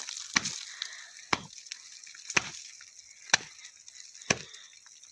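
Hatchet chopping a hole in thick ice: five sharp blows about a second apart, each ringing briefly.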